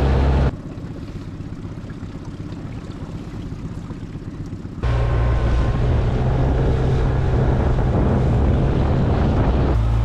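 Outboard motor on an inflatable boat running steadily under way. About half a second in it cuts out abruptly, leaving a quieter rush of wind and water, and it comes back just as abruptly near five seconds in.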